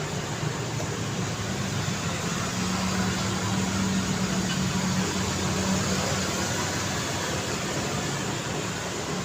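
Steady city street traffic noise, with one vehicle's low engine hum swelling through the middle and easing off again.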